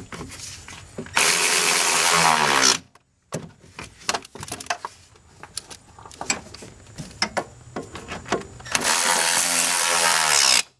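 Cordless drill/driver running in two bursts, about one and a half and two seconds long, driving bolts back in; light metal clicks and handling knocks come between the runs.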